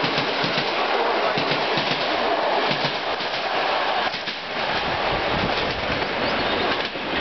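Passenger coaches of an express train rolling past at speed, their wheels rumbling and clattering over the rails and a turnout in very poor condition that the train jumps on. The noise eases briefly a little after four seconds as the last coach goes by.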